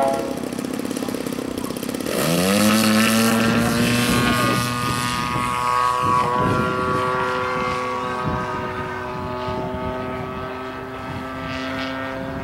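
RC aerobatic model airplane's engine and propeller running low, then throttled up about two seconds in, the pitch rising quickly to a steady high-revving note as the plane takes off and climbs away.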